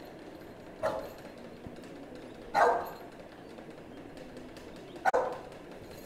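Eight-month-old pit bull barking three times, short single barks about two seconds apart, the middle one loudest.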